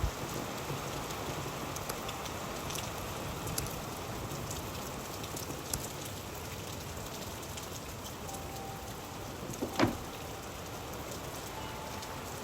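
Steady rain falling, an even hiss with scattered drop ticks. A single louder knock comes about ten seconds in.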